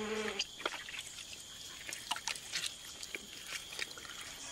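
Capybaras wading through mud and shallow water: irregular small splashes and wet squelching steps, over a steady high-pitched drone.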